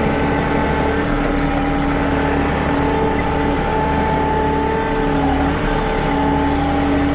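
John Deere compact utility tractor's three-cylinder diesel engine running steadily under load with a steady whine, as the tractor drives forward in low range with the loader bucket in float digging into a dirt pile. The pitch wavers slightly about five seconds in.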